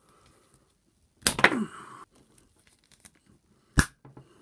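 Gedore combination pliers squeezed hard through a thick stranded copper cable with EPDM rubber insulation, the pliers struggling to get through. A loud creak with a falling pitch comes a little over a second in, and one sharp snap near the end as the jaws cut through.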